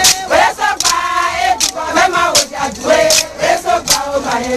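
A group of women singing a chant together as they process, over sharp percussive beats that come about every three quarters of a second.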